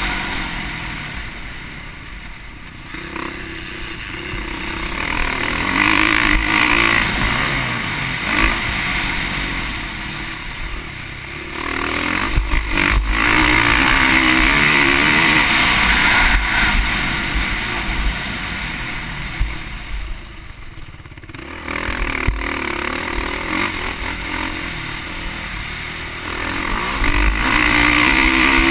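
Motocross bike engine ridden hard on a dirt track, heard from a camera mounted on the bike: the engine revs up and eases off again and again as the throttle is worked. It drops back about two seconds in and again around twenty seconds in, then pulls hard again.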